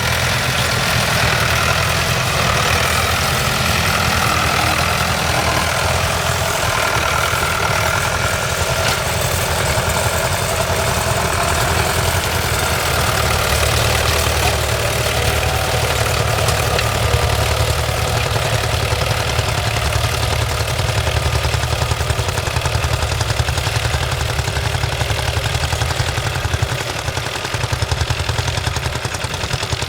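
Tractor engine running steadily while pulling a plough, a continuous low pulsing drone.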